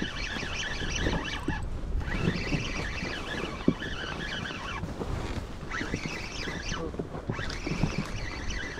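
Spinning reel cranked in spells of a second or two while reeling in a fish, its gears whining, with short stops between. Wind on the microphone and water rumble beneath.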